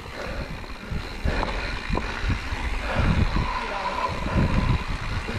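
Mountain bike rattling and clattering over a rough, rocky trail, with the tyres crunching on stones and a few sharper knocks from rocks. Wind rushes on the helmet-mounted microphone.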